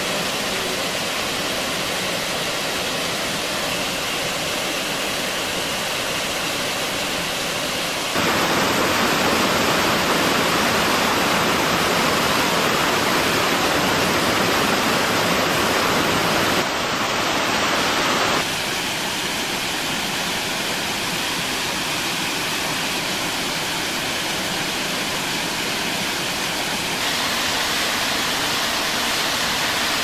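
Waterfall rushing close by, a steady hiss of falling water. It jumps abruptly louder about eight seconds in and drops back to its earlier level about ten seconds later.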